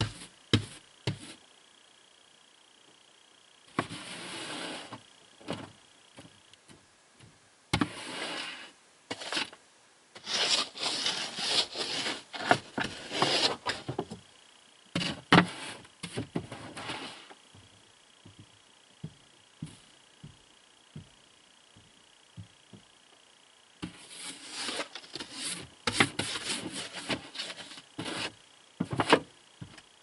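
Snow brush sweeping snow off a car windshield, heard from inside the car: bouts of gritty brushing and scraping on the glass, with occasional knocks and quiet pauses between strokes.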